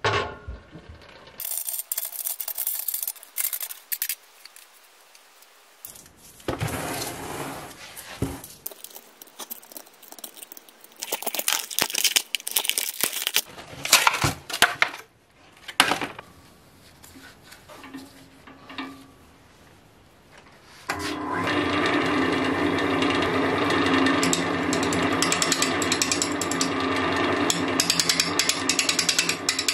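Workshop handling noises: knocks, clatter and scraping, including a plastic mold being peeled off a cast resin blank. About two-thirds of the way through, an Axminster wood lathe comes in suddenly, spinning the resin-and-oak-root blank while a gouge cuts it with a steady, even sound.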